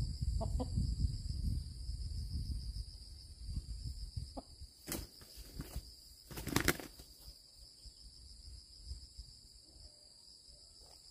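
Rustling and handling noise, busiest in the first few seconds, with two sharp crackling rustles in the middle, the second the loudest, over a steady high insect drone.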